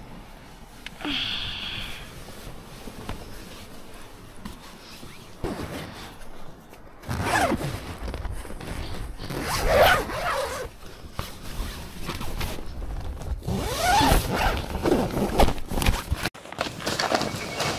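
Tent door zipper being pulled open from inside, with rasping runs in two long stretches.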